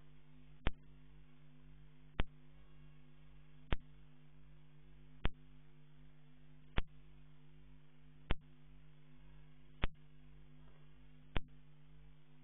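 Steady electrical hum of several low tones, with a sharp click repeating evenly about every one and a half seconds.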